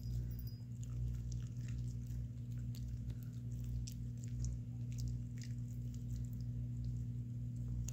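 Mini Aussiepoo gnawing on a soft, antler-shaped venison chew treat held in her paws, with irregular small crunches and clicks as she breaks off chunks. A steady low hum runs underneath.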